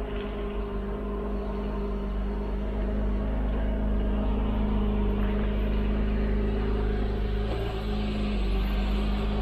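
Jeep's engine running steadily at low speed as the vehicle is driven slowly, growing a little louder over the first few seconds.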